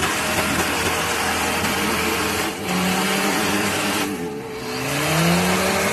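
Off-road 4x4's engine running under load. The engine bogs briefly about two and a half seconds in. At about four seconds its pitch sags low, then it climbs back up near the end.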